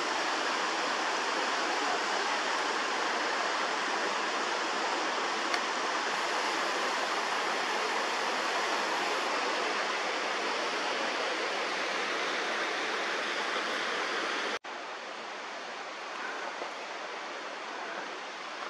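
Mountain creek cascading over rocks: a steady rush of water, which drops abruptly to a quieter level about fourteen and a half seconds in.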